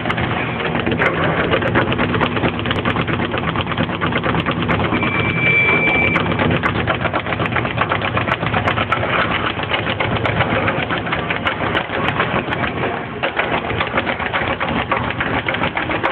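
Speed bag being punched in a fast, steady rhythm of knocks, many a second. A short high steady tone sounds once, about five seconds in.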